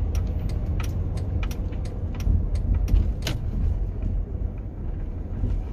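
Steady low rumble of a moving vehicle, with light clicks or rattles scattered irregularly through it.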